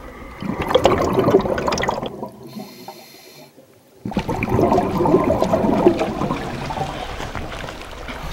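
Water sloshing and splashing close to the microphone at the water's surface, broken by about two seconds of near silence midway, then water noise again.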